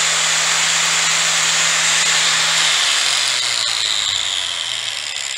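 Angle grinder with a sanding disc spinning free with nothing against it. About three seconds in its hum drops in pitch, and it fades as the disc winds down.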